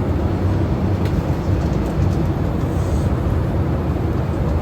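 Steady low rumble of a Boeing 787-8 airliner cabin in cruise: airflow and engine noise heard from inside the cabin.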